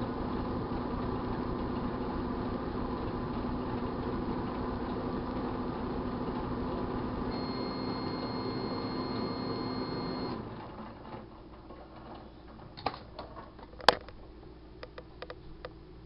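1978 GE Dual Wave microwave oven running with a steady hum; a steady high tone joins about seven seconds in, and about ten seconds in the oven shuts off. Then come quiet clicks and knocks, with one sharp click, as the door is opened.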